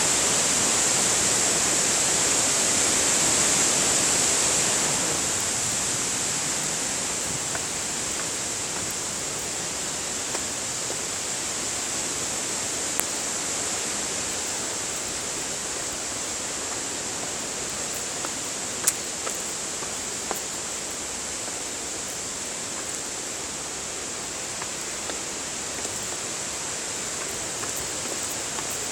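Steady rush of falling water from a waterfall, a little louder for the first few seconds and then even, with a few faint clicks.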